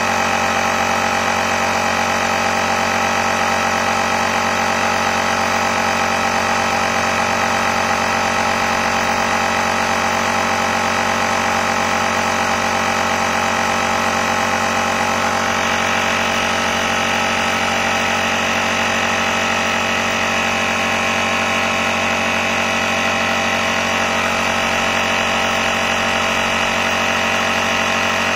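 Motomaster Eliminator booster pack's built-in air compressor running steadily while inflating a car tire, the pressure climbing from about 35 to 36 PSI.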